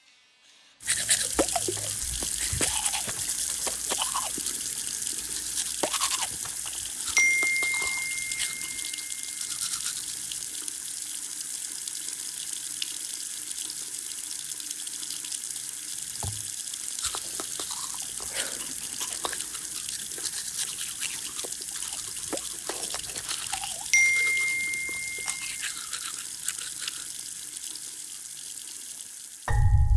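A bathroom tap running steadily into a sink while someone brushes their teeth. Over it, a phone notification chime rings twice, about seven seconds in and again near the end, each a single bright tone that dies away over a couple of seconds.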